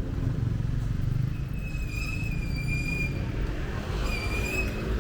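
Busy road traffic rumbling steadily. Two high, drawn-out squeals sound over it: one about a second and a half long midway, and a shorter one near the end.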